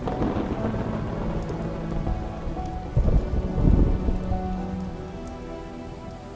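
Steady rain with deep rumbles of thunder, the heaviest about three seconds in, over soft held music notes.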